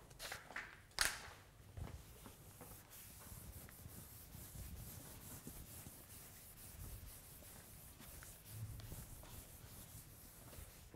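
Chalkboard being wiped clean with a hand-held eraser, a faint steady rubbing hiss with small swells as the strokes go back and forth. A few short knocks come in the first two seconds, the loudest about a second in.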